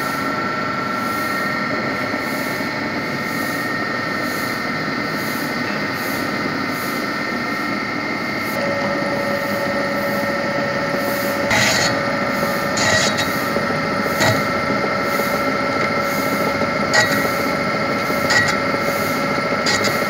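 Metal lathe running while machining a compressor cylinder liner: a steady mechanical noise with several steady high tones. A lower tone joins a little before halfway, and from just past halfway sharp knocks come every second or two.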